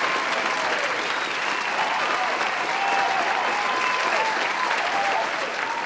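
Crowd applauding and cheering, an even clatter of clapping with short rising-and-falling shouts over it, laid into the edited outro as a sound effect.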